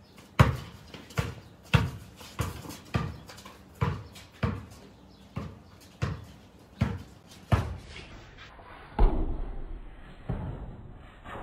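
Basketball being dribbled on paving: a steady run of bounces about every two-thirds of a second, then a louder thump about nine seconds in.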